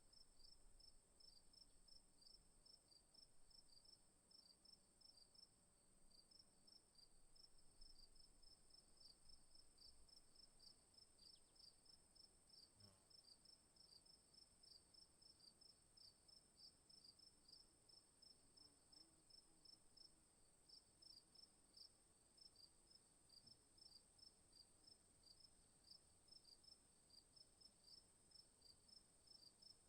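Faint insects chirping: a steady high buzz with rapid, regular chirps over a quiet background.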